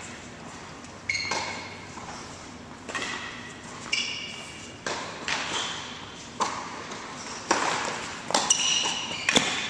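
Tennis rally on an indoor hard court: a string of sharp knocks from the ball being struck and bouncing, about one a second, with short high squeaks from sneakers on the court between them.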